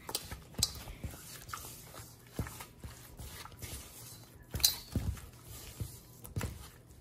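A spatula stirring sticky cookie dough of creamed butter, sugar, eggs and vanilla in a stainless steel bowl, with wet squelching and scraping and irregular knocks of the spatula against the metal bowl, the loudest a little after four and a half seconds.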